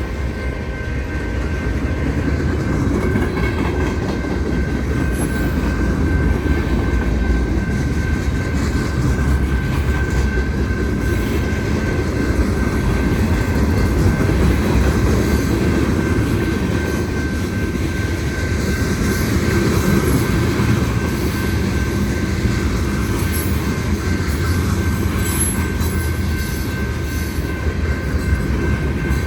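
Union Pacific manifest freight train's cars rolling past: a steady loud rumble of steel wheels on rail, with a thin, steady high squeal over it.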